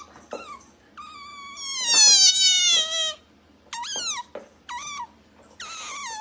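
Pet otter making cat-like, meow-like calls: one long call falling in pitch about a second in, the loudest, then three short falling calls.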